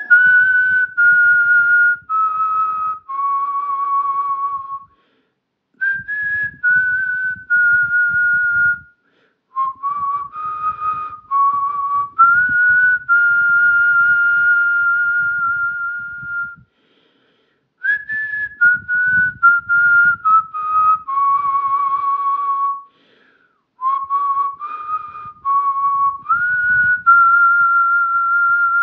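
A person whistling a slow tune in phrases separated by short pauses, each phrase ending on a long held note.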